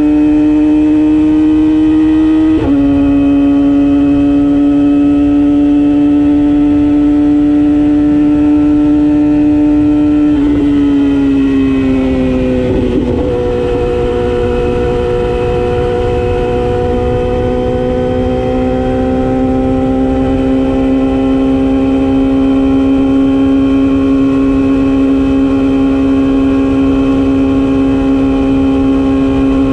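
Yamaha YZF-R6 sport bike's inline-four engine running at steady high revs with a high, even tone. The pitch dips slightly about three seconds in, then eases lower over a couple of seconds near the middle and holds there.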